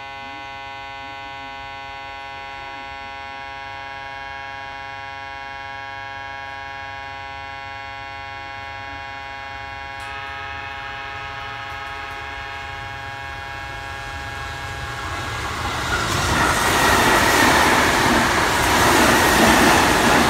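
A steady hum of many held tones, with a higher layer joining about halfway. Then a Sanyo Electric Railway 5000 series electric train passes at speed alongside the platform, its rushing wheel and running noise growing loud over the last five seconds.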